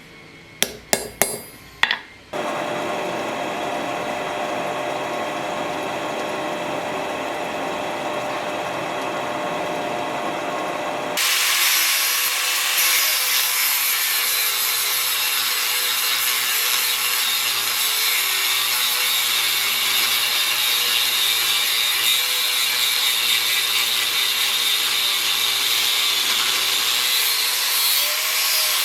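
A few sharp knocks, then a power tool runs steadily while shaping a knife handle. About eleven seconds in, the sound turns abruptly louder and hissier, as the tool bites into the work.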